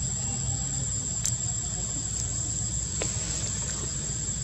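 Outdoor background of a steady high-pitched hum over a low rumble, with a few faint clicks.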